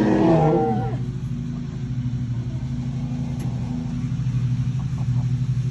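A steady low mechanical hum, like an engine running. In the first second a turkey's call, wavering and falling in pitch, dies away.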